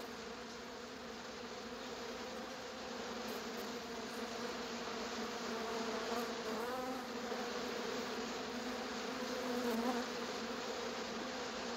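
Swarm of bees buzzing steadily, a droning hum that grows slightly louder over the course of the sound.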